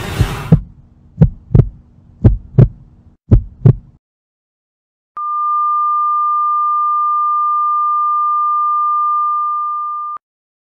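Heartbeat sound effect: three double 'lub-dub' thumps about a second apart. After a short silence comes a long, steady, high beep: a heart monitor flatline, the sign of the heart stopping.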